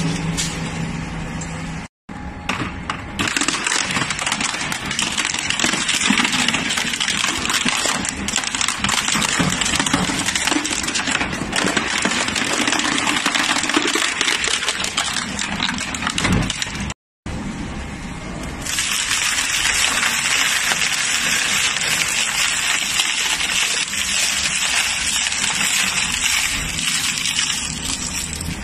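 Industrial crushing machine grinding material, a dense, steady clatter of many small rattling impacts. It stops abruptly for a moment twice, about two seconds in and again around seventeen seconds; from about nineteen seconds it is brighter and louder.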